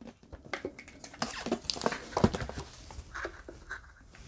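Cardboard shipping box being handled and repositioned: irregular scraping, rustling and light knocks of cardboard on a cloth-covered table, loudest about two seconds in.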